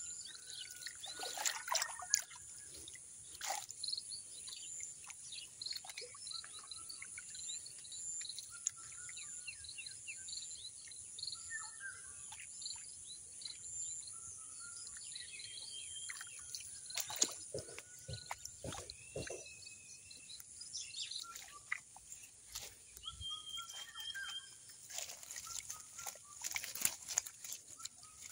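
Outdoor rural ambience: many birds chirping, over a steady high-pitched insect buzz. Scattered sharp clicks and knocks, clustered near the start, a little past halfway and near the end.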